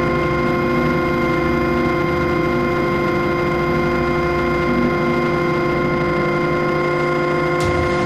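Electric RC helicopter (Mikado Logo 500 with a Scorpion brushless motor) heard from its own onboard camera: the motor and drivetrain whine at a steady pitch. The steady headspeed is held by the speed controller's governor.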